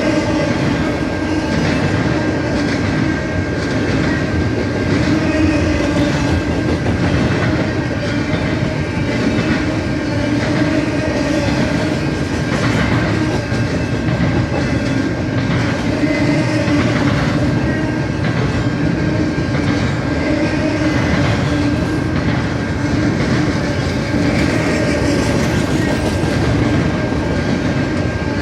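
Freight train rolling past, a steady loud rumble and clatter of wheels on the rails with a faint steady whine over it.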